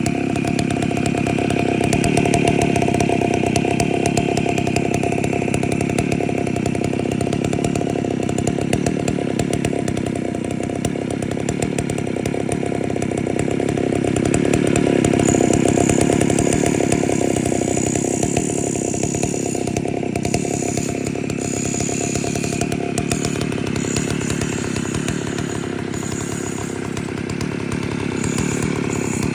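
Two-stroke chainsaw running continuously, its loudness swelling and easing, with a thin high whine joining about halfway through.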